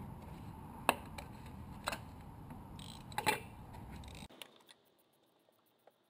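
Sharp clicks and knocks of hard plastic engine-bay parts being handled, three of them standing out about a second apart, over a steady low hum that cuts off suddenly a little past four seconds in.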